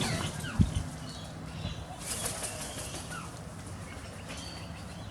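Bird's wings flapping, with a single thump about half a second in.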